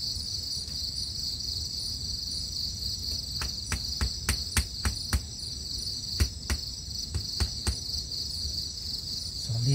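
Crickets chirring steadily, with a run of sharp knocks about three a second from a few seconds in until near the end: a knife tapping a wooden stake of a mouse trap into the ground.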